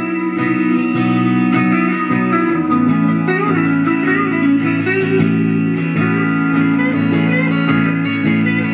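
Electric Stratocaster-style guitar played plugged in: held chords ringing under single notes that bend and waver, with a chord change about a third of the way in.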